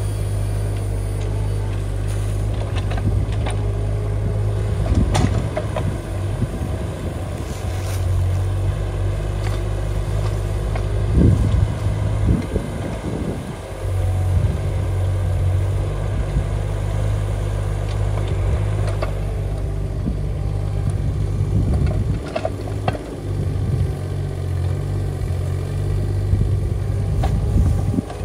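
Kubota D902 three-cylinder diesel of a mini excavator running steadily while it digs, its hum dipping and picking up with load. Short knocks and scrapes come from the bucket working the soil.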